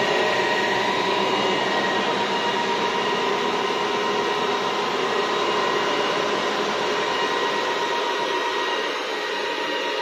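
Dell PowerEdge 2850 server's cooling fans running flat out: a loud, steady rushing whine with several fixed high tones, a little quieter near the end. The fans run at this speed constantly even though the server is not running hot, which the owner is unsure is normal.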